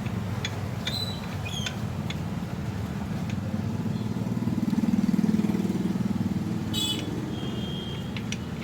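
Low motor-vehicle rumble that swells to a peak about halfway through and then fades, like a vehicle passing, with a few light metallic clicks and taps.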